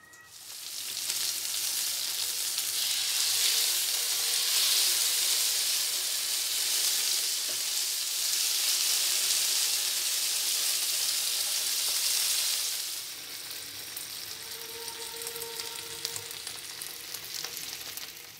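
Skewered chicken tikka pieces sizzling as they fry in hot oil in a flat pan. The sizzle comes in about half a second in and drops to a quieter level about two-thirds of the way through.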